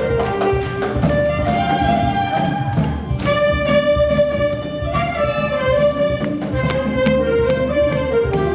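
Saxophone playing a slow melody of long held notes that slide between pitches, over an accompaniment with drums and bass.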